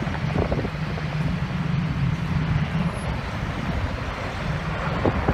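Helicopter flying low overhead: a steady low drone of rotor and engine over a broad hiss, the drone easing a little about three seconds in.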